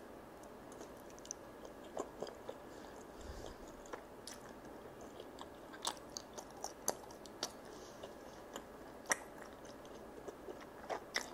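Close-up mouth sounds of a person chewing a bite of sauce-glazed charcoal-grilled chicken and rice cake pulled off a skewer: irregular soft wet clicks and smacks, the sharpest about nine seconds in.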